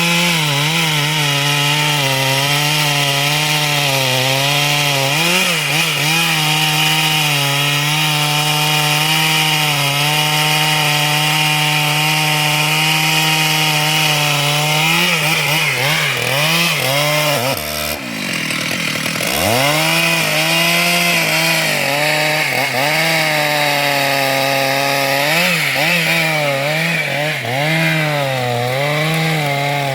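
Chainsaw running at high revs while cutting wood, its pitch wavering as the chain bites. A little past halfway the engine drops sharply in pitch for about a second, then revs back up and keeps cutting.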